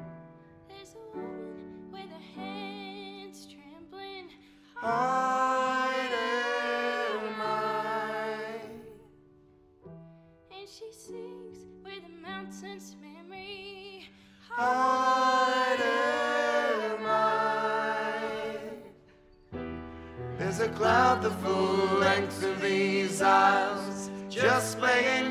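A song with sung voices: two loud phrases of long held notes with quieter passages between them, then a fuller, busier accompaniment coming in about twenty seconds in.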